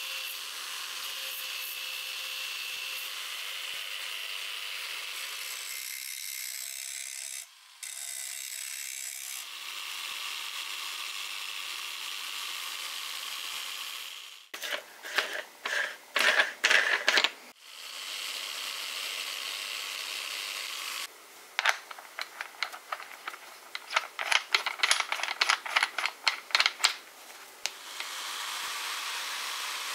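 Angle grinder running steadily with a whine, its disc grinding and polishing the steel tang of an old cleaver with a rubbing hiss. Twice the running gives way to a stretch of rapid, loud metallic clicks and rattles, the first short and the second longer, before the steady grinding returns near the end.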